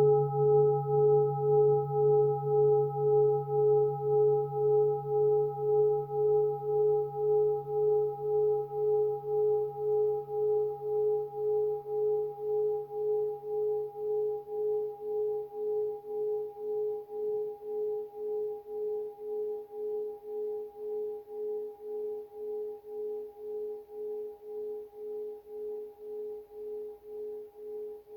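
A struck bell ringing out in a long, slow decay, its steady tone pulsing about twice a second as it fades. The lowest hum dies away about two-thirds of the way through.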